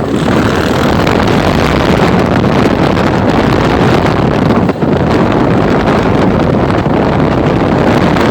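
Motorcycle engine running under way with heavy wind buffeting on the microphone, dipping briefly about halfway through.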